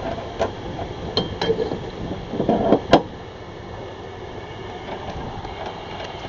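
A handful of sharp metallic clinks and knocks from metal parts being handled, two of them ringing briefly. A quick cluster of knocks near the middle ends in the loudest clank, about three seconds in, over a steady low background hum.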